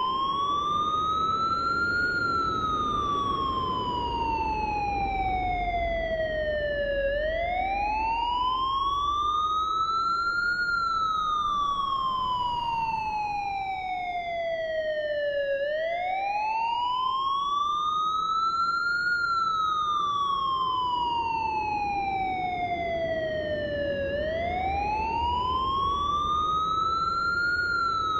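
Emergency vehicle siren in a slow wail: the pitch climbs over about three seconds, then slides down over about five, repeating about every eight and a half seconds, over a low rumble.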